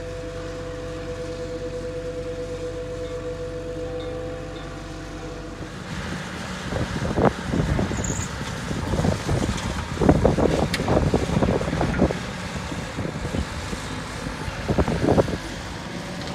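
A compact track loader's engine running steadily at a distance, a low hum with a steady whine on top. About six seconds in, this gives way to wind buffeting the microphone in irregular gusts, which is the loudest sound.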